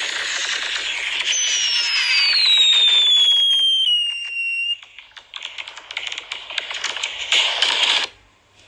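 Fireworks crackling over a dense hiss, with a whistle sliding down in pitch from about a second in. Then come a few seconds of rapid crackling pops that stop suddenly near the end.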